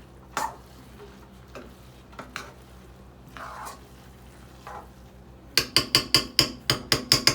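Utensil working in a cooking pot of rice, with scattered soft scrapes and clicks. In the last two seconds comes a quick run of about a dozen sharp, ringing metallic taps.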